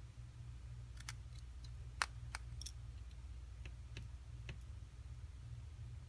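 Scattered small, sharp clicks and taps of a precision screwdriver and small parts being worked on an iPhone 6's internals, irregular and most between one and five seconds in, over a steady low hum.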